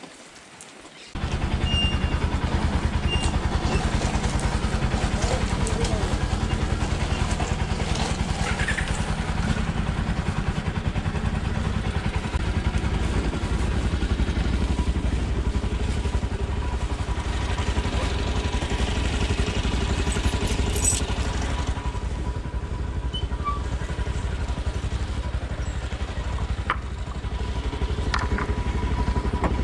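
Single-cylinder motorcycle engine idling steadily. It comes in abruptly about a second in and holds an even level with no revving.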